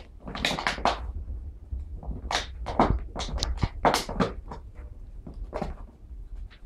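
A rapid, irregular series of knocks and clatters, loudest about three and four seconds in.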